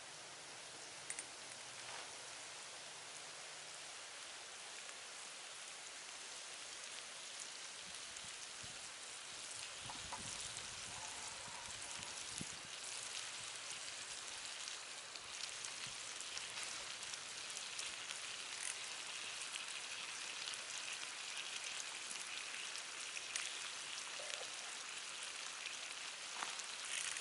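Food sizzling in a pan over a wood campfire: a steady hiss with fine crackles, growing slightly louder.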